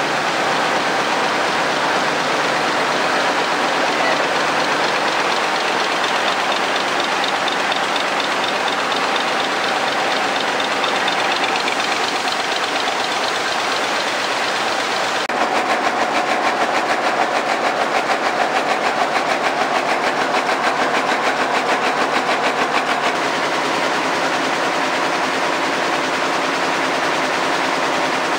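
Air jet weaving looms running at full speed: a loud, steady clatter and hiss of machinery. About halfway through, a fast, even beating comes to the fore for several seconds.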